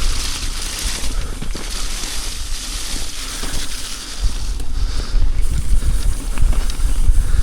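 Riding noise from a mountain bike descending rough ground: wind buffeting the microphone with a heavy rumble, over a hiss of tyres and scattered clicks and rattles. The wind rumble grows louder about halfway through.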